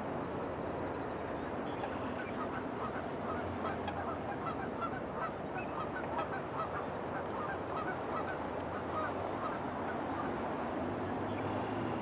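Water birds calling in a rapid run of short calls, several a second, from about two seconds in until near the end, over a steady background noise.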